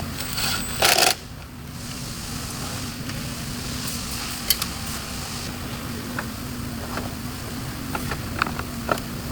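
Workshop sounds over a steady low hum: a short loud burst about a second in, then scattered light clicks and taps.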